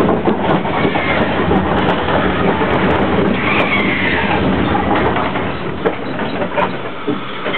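Open passenger cars of a narrow-gauge steam train rolling along the track: a steady rattling rumble from the cars with scattered clicks of the wheels on the rails, a little quieter in the last couple of seconds.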